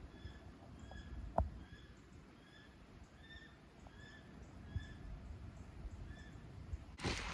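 A faint, high-pitched animal call repeated steadily about twice a second, over quiet outdoor background. There is one sharp click about a second and a half in, and a rush of louder noise near the end.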